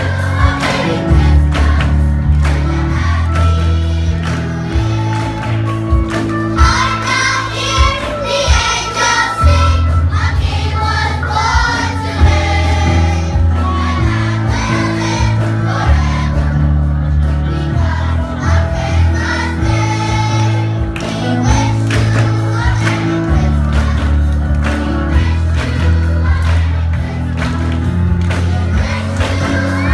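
Children's choir singing a lively song over a band accompaniment with a strong, shifting bass line, the singers clapping along.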